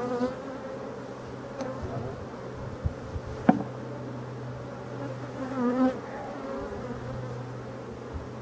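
Steady hum of a populous honeybee colony in an opened hive, with a louder buzz swelling briefly near six seconds and a single sharp knock about three and a half seconds in.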